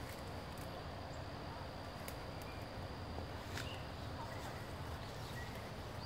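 Footsteps and rustling through dense undergrowth as leaves and stems brush past, with scattered sharp snaps and a few faint high chirps.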